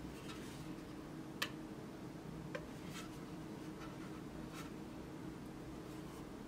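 A few light, separate clicks as fingers press the buttons on and handle the plastic case of an Eachine EV800D FPV goggle receiver, over a faint steady hum.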